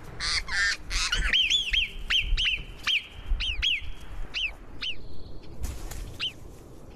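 Alpine marmot alarm calls: a rapid series of sharp, high whistles, several a second, thinning out toward the end. Marmots give these calls to warn of a predator. There is a brief rustling burst shortly before the end.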